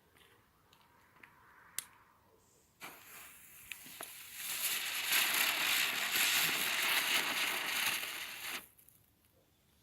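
Small category 1 youth firework burning with a loud fizzing hiss. It catches just under three seconds in, swells, burns for about six seconds and cuts off sharply.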